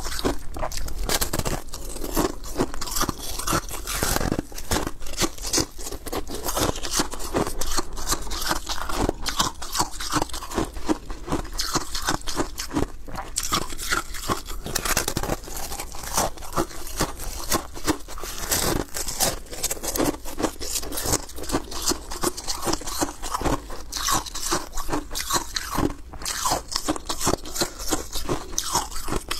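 Thin balloon ice being bitten and chewed: a dense, continuous run of sharp cracks and crunches as the brittle sheets break.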